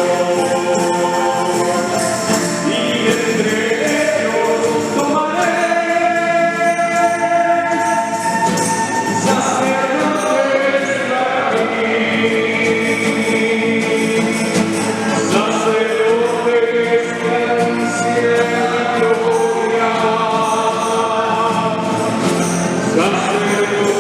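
A choir singing a hymn in several voices, with sustained notes that shift every second or so.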